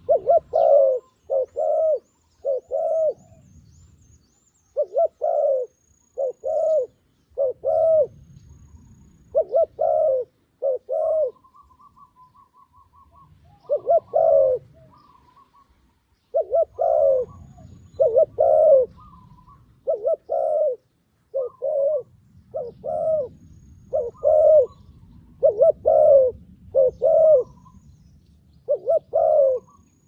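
Spotted dove, a tethered decoy calling to draw wild doves down, cooing over and over: short, low coos in groups of two or three with brief pauses between. A faint higher chattering call joins around the middle, and a low rumble fills the gaps.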